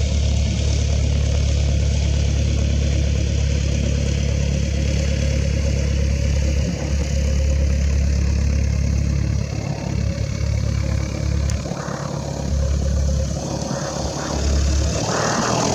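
A small propeller aircraft's piston engine running with a steady low drone. The drone dips briefly a few times, near the middle and toward the end.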